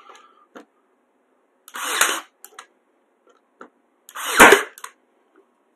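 Cordless nail gun firing twice, about two and a half seconds apart, driving nails into a wooden door frame; each shot is a short whoosh ending in a sharp snap, the second louder.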